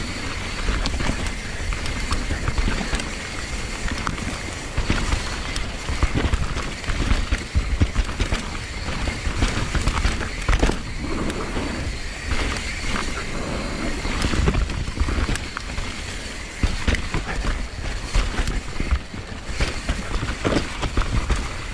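Mountain bike riding down a dirt trail: tyre noise and the bike rattling, with many sharp knocks over bumps and roots, over a steady rumble of wind on the microphone.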